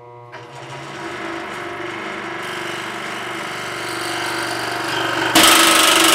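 Scroll saw running and cutting wood, a steady buzzing reciprocating drone. About five seconds in the sound suddenly jumps louder and harsher as the blade breaks and the saw runs on with the broken blade.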